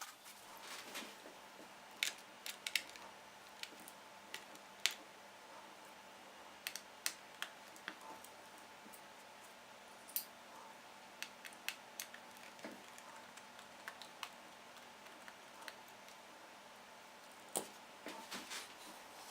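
Scattered light clicks and taps of small laptop parts, screws and tools being handled during disassembly, with a few louder knocks, over a faint steady hum.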